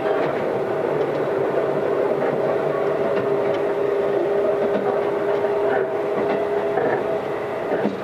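Running noise heard inside a Keisei AE100 series limited-express car on the move: steady wheel-on-rail noise with a constant hum at two pitches. The car's air conditioning fan runs weakly beneath it.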